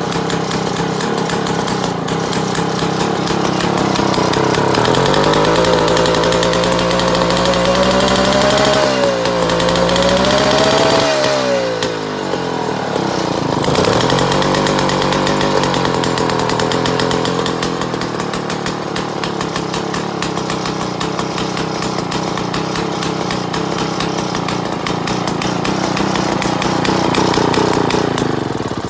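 Mall 7 two-man chainsaw's two-stroke power head running on its first start after decades. The revs climb about five seconds in, dip around twelve seconds, pick up again and then settle to a steady run.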